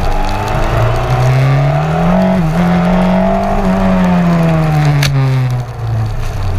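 Open-wheel race car's engine, heard on board, revving up for about two seconds with a brief dip about two and a half seconds in. It holds high, then falls steadily as the car slows, over the hiss of the tyres throwing spray on wet pavement.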